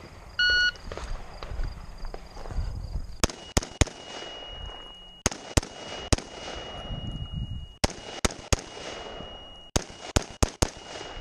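A shot timer's electronic start beep, then a rifle firing more than a dozen shots in quick pairs and strings, with short pauses between groups as the shooter moves between targets.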